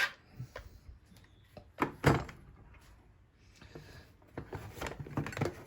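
Handling noise: a sharp knock about two seconds in, then a run of light clicks and taps near the end.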